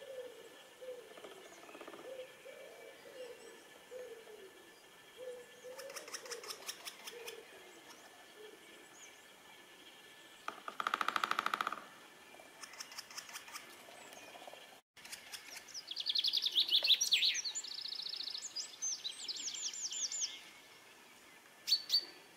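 Three-toed woodpeckers drumming: a faint roll about six seconds in, a loud close drum roll lasting about a second near eleven seconds, and a fainter roll after it. From about fifteen seconds, the quarrelling woodpeckers give dense, sharp, repeated calls for several seconds. Soft, low warbling notes sound through the first half.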